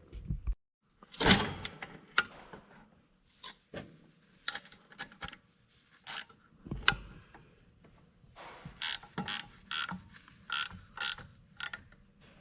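Ratchet wrench clicking in short runs, with a few sharp metallic knocks, as a bolt on the alternator mount is tightened to hold the tensioned fan belts.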